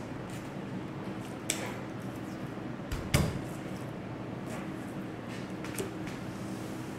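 Handling noises at a wooden cutting board over a steady low hum: a light click about one and a half seconds in, then one heavy thud about three seconds in, the loudest sound, with a few faint clicks after.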